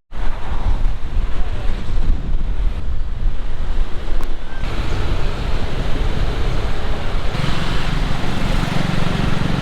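Wind buffeting the microphone while riding a motorbike, with the bike's engine and road noise underneath. The sound shifts abruptly a few times.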